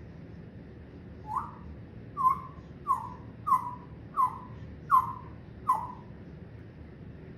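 A pet parrot giving a run of seven short calls, evenly spaced about two-thirds of a second apart, each sliding quickly up and then down in pitch.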